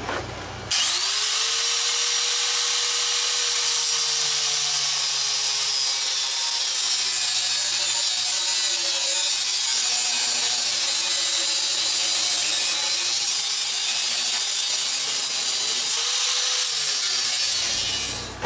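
Angle grinder starting up and cutting through a forged spring-steel rail clip: a steady high motor whine over harsh, hissing metal-cutting noise. The whine sags a little as the wheel bites, picks up speed again near the end as it comes free, and the grinder switches off just before the end.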